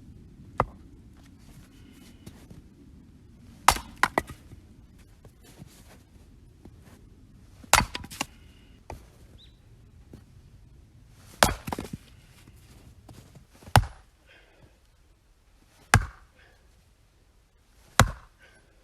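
Axe splitting oak logs into firewood: a sharp chop every two to four seconds, about seven in all, several followed by a second quick strike as the blade goes through.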